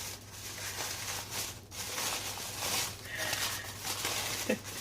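Rustling and handling noise from soap packaging being moved and unwrapped, with a few light clicks near the end.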